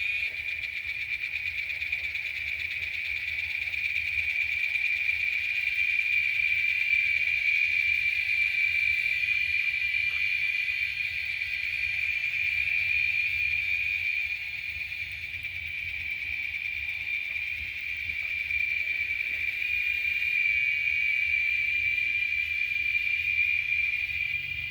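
Steady chorus of insects such as crickets, a continuous high-pitched trill that swells and eases a little in loudness but never breaks.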